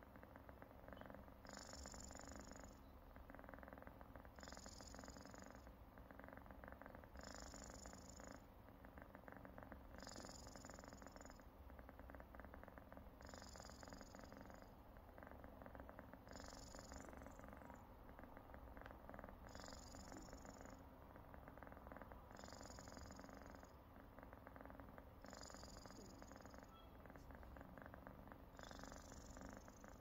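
Sleeping cat snoring faintly, with a thin, high whistle on each breath about every three seconds.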